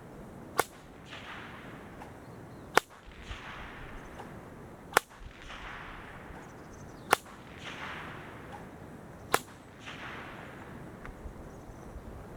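Seven-foot stock whip cracked five times, about every two seconds, each sharp crack followed by a fading echo.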